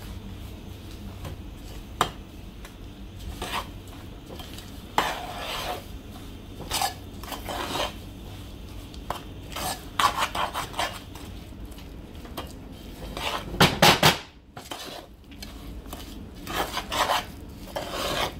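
Spoon scraping and knocking against the inside of a metal pot while stirring a thick, grainy coconut mixture. The strokes are irregular, with a louder cluster of clanks about fourteen seconds in.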